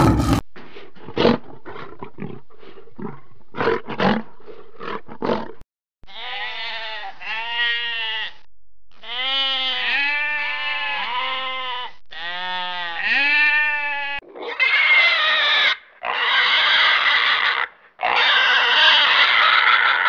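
A sequence of different animal calls: a run of short, clipped calls, then about eight pitched calls that rise and fall, then three long, harsh calls.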